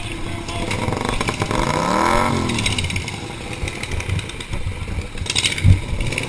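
A race car engine running, revving up and dropping back about two seconds in, with a clatter and a single low thump near the end.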